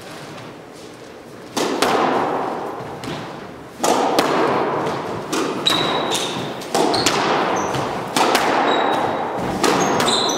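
Squash ball being struck by rackets and smacking off the court walls, each hit a sharp crack with a long echo, about every one to two seconds from about a second and a half in. Short high squeaks from shoes on the wooden floor come between the hits.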